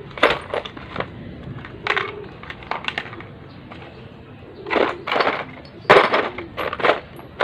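Hand tools and steel engine parts clinking and clanking against each other in a string of separate sharp knocks, the loudest about five and six seconds in, as clutch parts are fitted onto a motorcycle engine.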